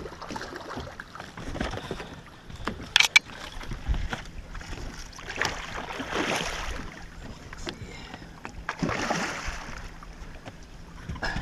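A hooked musky thrashing and splashing at the surface beside the boat as it is brought to the net, in two rushing splashes about six and nine seconds in. A couple of sharp knocks come about three seconds in.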